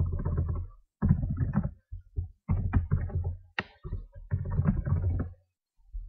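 Computer keyboard being typed on in several quick runs of keystrokes with short pauses between them, as a filename is entered. The strokes have a dull, desk-borne thud.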